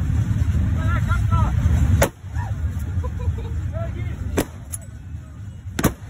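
Rifle gunfire: three sharp shots, the second about two seconds after the first and the third about a second and a half later. A heavy low rumble cuts off abruptly at the first shot, and faint distant shouting runs under the shots.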